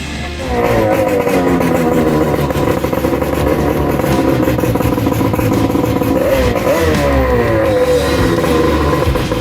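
Yamato two-stroke twin-cylinder racing outboard running. It comes in about half a second in with its pitch sinking at first, then holds steady, and is blipped twice in quick succession past the middle.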